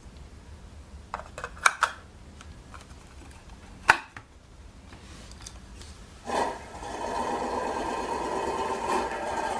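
A few clicks, then a sharper click, then the rotating display stand's small electric motor starts about six seconds in and runs with a steady whirring whine.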